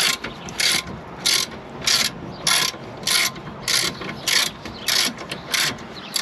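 Ratchet wrench clicking in a steady rhythm of short bursts, about three every two seconds, as it undoes a rear shock absorber mounting bolt.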